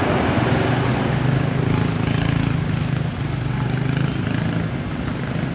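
Bus engine running steadily, a low hum with road and traffic noise over it.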